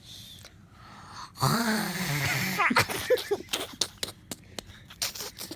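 A person imitating loud snoring: a long, rough fake snore with a low wavering pitch starts about a second and a half in. It is followed by a run of short, sharp clicks and puffs of breath.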